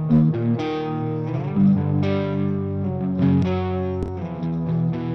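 Overdriven electric guitar with light amp breakup playing a chord-and-note riff, struck about twice a second, heard through the NanoPulse transient designer plugin, which is shaping the pick attacks.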